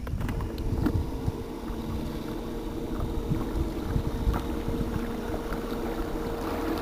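Boat motor running steadily with a constant hum, over low wind and water rumble.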